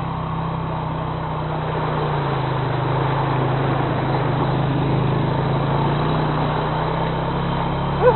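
ATV engine running steadily under way, its pitch drifting a little up and down. Right at the end comes a short, loud, falling cry.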